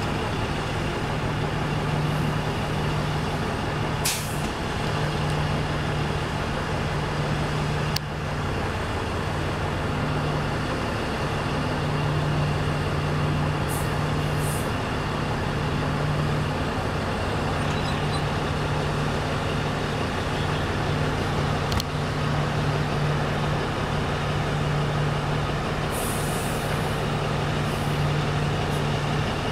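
Oshkosh Striker airport crash-rescue truck's diesel engine running with a steady low drone, with short hisses of air from its air brakes a few times.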